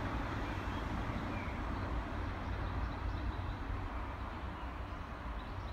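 Class 142 Pacer diesel multiple unit, coupled to a Class 153, pulling away into the distance: a low diesel rumble that slowly fades.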